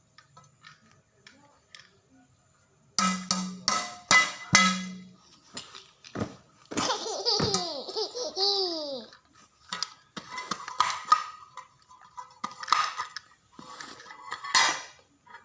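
Babies about a year old laughing and giggling in repeated bursts, with high squealing laughs that glide downward in pitch near the middle. The laughter follows a cluster of short, sharp sounds about three seconds in.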